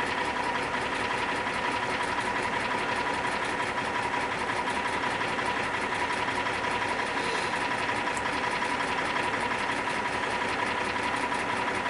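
2003 Jeep Wrangler TJ's 4.0-litre straight-six idling steadily at about 680 rpm with a rhythmic knock and tick, which the owner suspects is a broken piston skirt or bad piston rather than a crank bearing.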